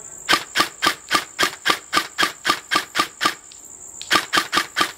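EMG Umbrella Armory Helios airsoft M4, an electric airsoft rifle running on an 11.1 V lipo, firing on semi-automatic: rapid single shots about three or four a second, a dozen in a row, then a short pause a little past the middle and another run of shots.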